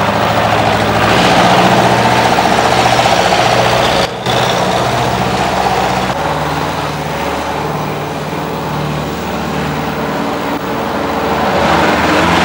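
Forklift truck engine running steadily as the truck is driven, with a short break about four seconds in and a change in the engine note about two seconds later.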